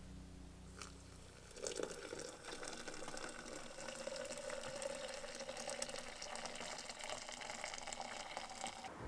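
Steaming hot water poured from a camp-stove cook pot into a glass French press of ground coffee: a steady splashing pour that starts about a second and a half in and runs to near the end.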